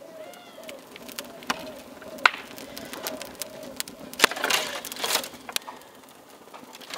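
Dry sticks and twigs knocking and snapping as they are laid onto a small wood fire in an oven, with the fire crackling: a run of scattered sharp clicks and clatters, thickest about four to five seconds in. A bird's repeated calls go on in the background for the first second or so.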